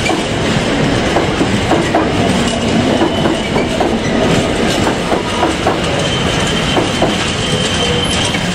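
A train running along the rails, its wheels clicking over the rail joints, with a thin high wheel squeal that comes in a few seconds in and grows louder near the end.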